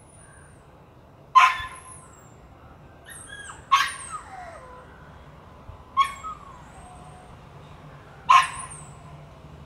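A dog barking four times, about two seconds apart, each bark sharp and loud and trailing off in a falling tone.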